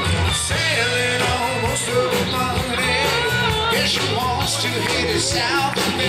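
Live rock band playing an instrumental break: an electric guitar carries a bending, wavering lead line over strummed guitar, bass and drums.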